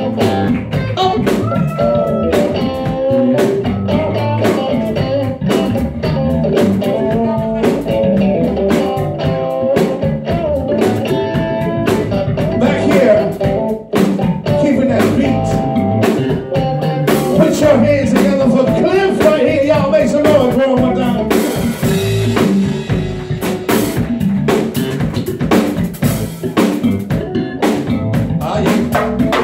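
Live band playing a blues groove on electric guitar, electric bass and drum kit, with a brief drop in level about halfway through.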